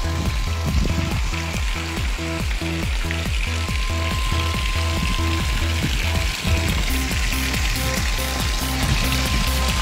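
Background music with a steady, repeating bass line, over the continuous hiss of water spilling down an artificial rock waterfall into a pool.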